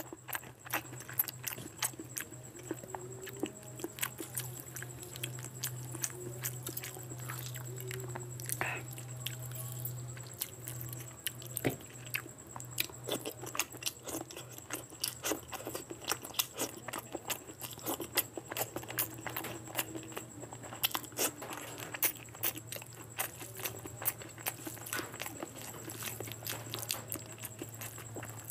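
A person eating curry and rice by hand close to the microphone: wet chewing and biting with many sharp mouth clicks all through, over a steady low hum.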